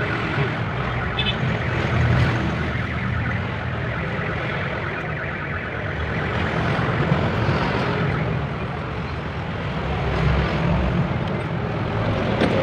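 A steady low mechanical rumble that swells and eases slightly but never stops.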